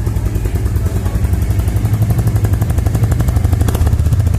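2021 Royal Enfield Classic 350's 349 cc single-cylinder engine idling just after start-up, its exhaust beating out an even, rapid pulse.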